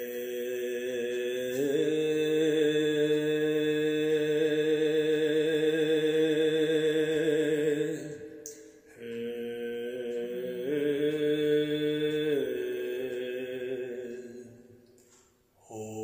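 A man's voice chanting wordless light language: long held notes with a slight waver, the first about eight seconds long and stepping up in pitch a couple of seconds in, then after a short breath a second held note of about five seconds that rises and then drops before fading. A new note starts right at the end.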